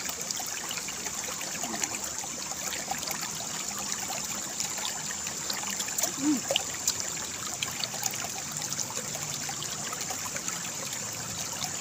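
Water from a small irrigation channel flowing steadily past with a continuous trickling rush, overlaid by a few faint clicks.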